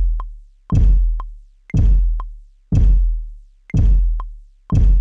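Electronic kick drum sample, the 8-Ball Kit's kick on a Native Instruments Maschine MK3, played from a pad about once a second. Each deep hit fades away before the next, and a short high click falls between the hits.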